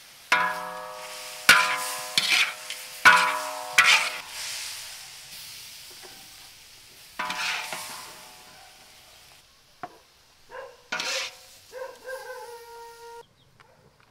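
Long metal spatula striking and scraping a large steel wok during stir-frying, each strike ringing, over the sizzle of frying beef and vegetables. The sizzle fades away, and a few softer clinks with a brief ringing tone follow near the end.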